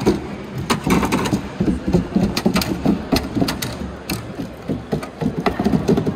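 Unitree quadruped robot walking over plywood terrain: its feet tap and knock on the wooden boards in an uneven run of several strikes a second, over the steady hum of its leg motors.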